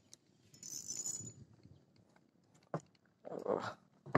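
Daiwa Revros spinning reel being cranked to bring in a hooked hampala on a bent ultralight rod: faint bursts of reel whirring with a thin high whine, and a few light clicks near the end.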